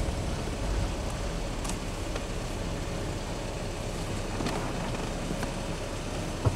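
Steady low hum of a car idling, heard from inside the cabin, with a few faint clicks.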